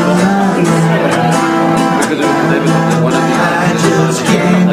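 Live acoustic duo: two steel-string acoustic guitars strummed in a steady rhythm while a man sings held notes into a microphone.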